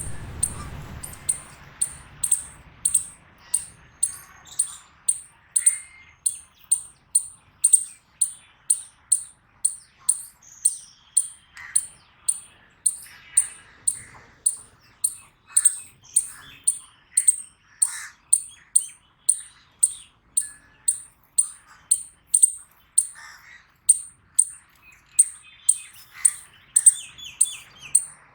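Eastern chipmunk giving its repeated high-pitched chip call, a steady string of short chips at about two a second. This steady chipping is typical of a chipmunk's alarm call. Fainter, lower chirps sound underneath.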